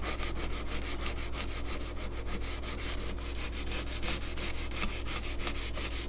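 Hand sanding the steel blade of a US M3 trench knife with a red abrasive sheet: quick, even back-and-forth strokes, several a second, cleaning and polishing the blade.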